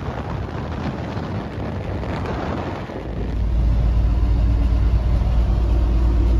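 Wind and road noise at highway speed, then about three seconds in a louder, steady low drone of a Mazda pickup's engine and tyres heard from inside the cab while cruising.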